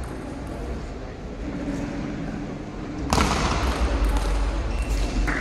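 Table tennis rally: the celluloid-plastic ball ticking off rubber paddles and the table. About three seconds in, a sudden loud rushing noise sets in and stays.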